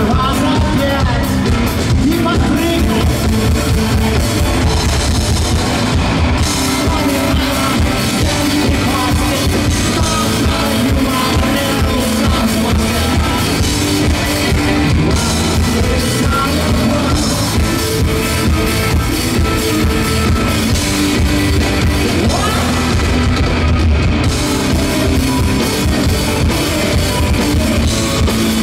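A live rock band playing loudly, with drum kit and guitars, and a male lead singer singing over it.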